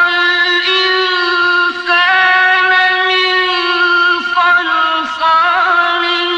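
A male Quran reciter's voice in melodic recitation, holding a long, high drawn-out note that wavers slightly, with a few brief dips in pitch between held stretches.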